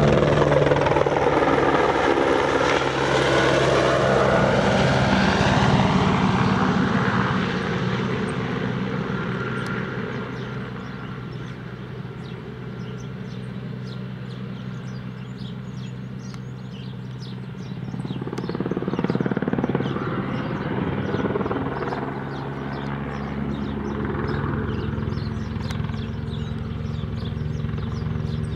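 Eurocopter AS350 single-engine turbine helicopter flying low: loudest as it passes directly overhead at the start with a sweeping, phasing sound, fading, then growing louder again from about 18 seconds as it comes back on a spraying run.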